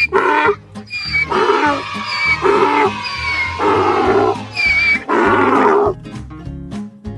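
An animal call, repeated about five times, each call about half a second long, over background music. The music runs on alone near the end.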